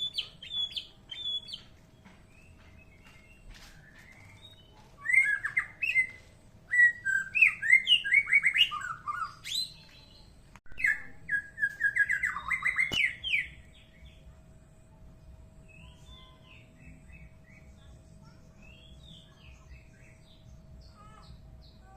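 White-rumped shama singing: quick, varied chirps and whistled phrases in two loud runs through the middle, with a few short high notes at the start and softer scattered notes near the end. A faint steady hum sits underneath.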